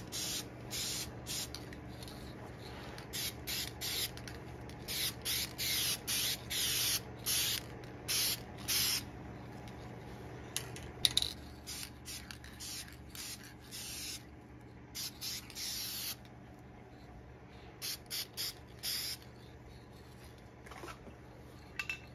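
Aerosol spray-paint can hissing in many short bursts as silver paint is sprayed onto a car grille, the bursts coming close together at first and thinning out after about nine seconds. A sharp click sounds about eleven seconds in, over a faint steady low hum.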